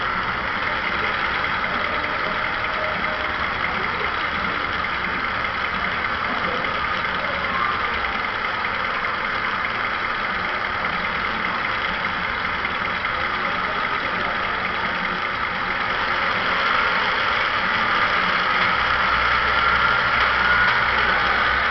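Digitally sampled diesel locomotive engine sound from the ESU LokSound decoder in a Mehano HO-scale Vossloh G2000 model, played through its small onboard speaker. The engine runs steadily and grows a little louder, with more low rumble, near the end.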